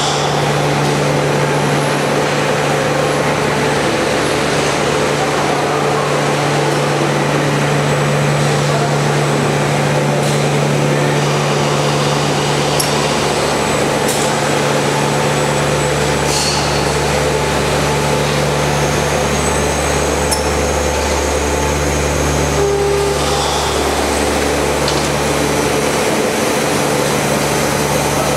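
Laminate production line machinery running with a steady hum and hiss. A deeper drone comes in about halfway through and stops near the end, with a few sharp clicks along the way.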